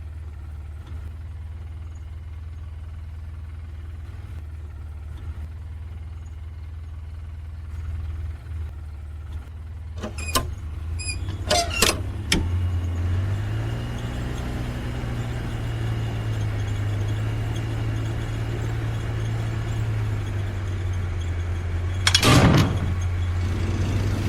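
Wood chipper motor running with a steady low hum. A few sharp clicks come about ten to twelve seconds in, then the motor's pitch steps up and it runs faster. A short loud burst of noise comes near the end.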